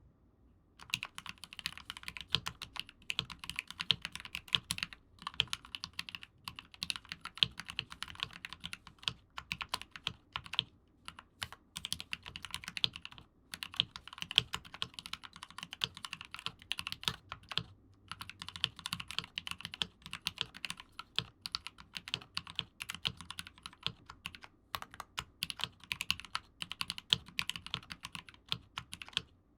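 Steady typing on a mechanical keyboard fitted with Gateron Ink linear switches, lubed with Krytox 205g0 and filmed, under GMK keycaps in a weighted Rama Koyu case. The fast run of key presses starts about a second in and breaks off briefly a few times.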